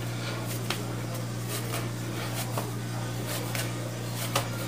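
A few soft taps and handling noises as salgado dough is kneaded and pressed by hand on a granite countertop, over a steady low hum.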